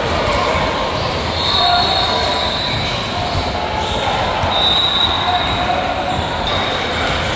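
Indoor basketball game: a ball bouncing on the court, with high squeaks and voices echoing in a large gym.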